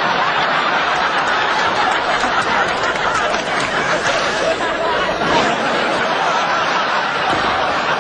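People laughing continuously, at a steady level with no clear words.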